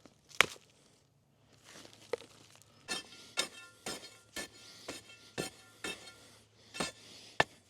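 A metal tool striking lumps of set-up (prematurely hardened) concrete mix to break them up, with faint ringing clinks. There is one sharp strike about half a second in, then a steady run of blows about two a second.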